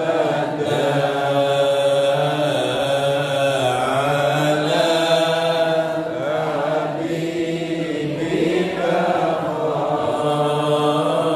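Men chanting an Arabic Islamic prayer, one voice leading through a microphone, in a continuous melodic recitation with long held notes.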